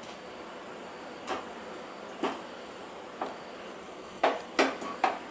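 Stuffed green chillies being set one by one into a frying pan of hot oil: about six light knocks and clicks against the pan, spaced a second or so apart and then three in quick succession near the end, over a low steady hiss.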